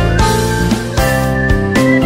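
Instrumental background music with guitar and a steady beat.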